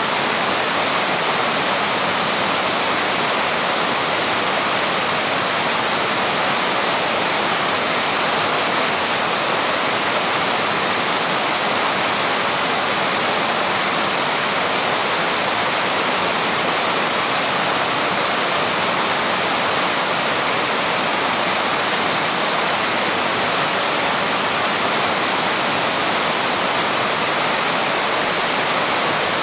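Waterfall with water rushing steadily over the falls, an even, unbroken hiss.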